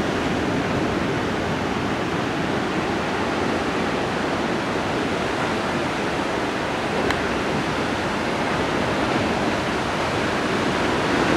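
Ocean surf: a steady, unbroken roar of waves on the shore, with one faint tick about seven seconds in.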